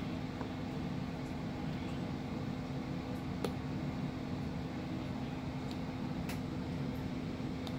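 Steady mechanical room hum with a constant low tone. A few faint light taps, the Apple Pencil's plastic tip tapping the iPad's glass screen, come about three seconds in, around six seconds in and near the end.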